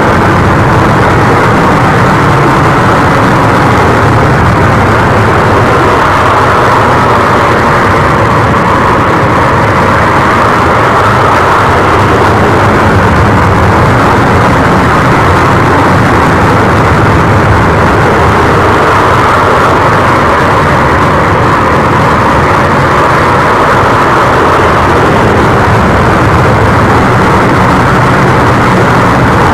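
Steady jet roar from a model F-15 Eagle jet, loud and unbroken, its hiss swelling and easing slowly.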